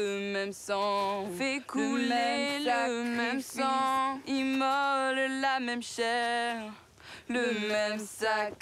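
A woman singing in French, holding long notes with vibrato in phrases broken by short pauses, with no clear accompaniment.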